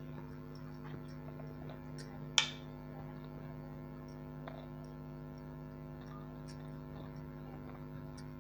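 A steady low electrical hum with a few faint clicks, and one sharp clink about two and a half seconds in as a steel spoon is set down in a steel bowl.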